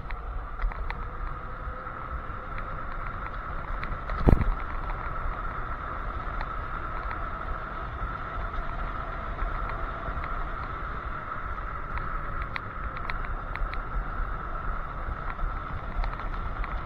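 Electric scooter riding along a paved road: steady road rumble and wind noise under a constant high hum, with scattered small rattling clicks and one sharp knock about four seconds in.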